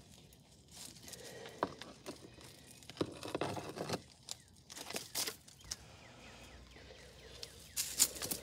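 A claw hammer knocking and scraping at the charred, melted plastic remains of a burnt alarm clock on concrete. The knocks are irregular, with the sharpest ones a little before the end.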